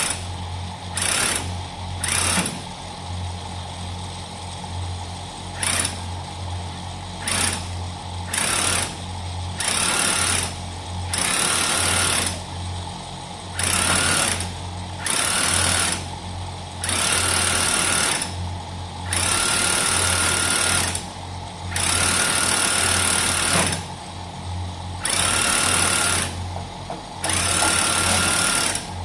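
Motor-driven pressure sprayer running steadily while the spray is triggered on and off in about fourteen hissing bursts, short at first and lasting one to two seconds later on.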